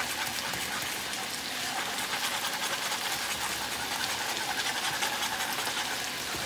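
Metal whisk beating flour into a thick simmering sauce in a saucepan: a steady, fast scraping and clicking of the wires against the pan.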